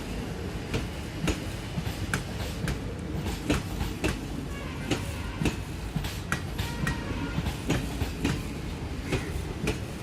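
Passenger express train rolling past, its wheels clicking and clattering over the rail joints several times a second over a steady rumble.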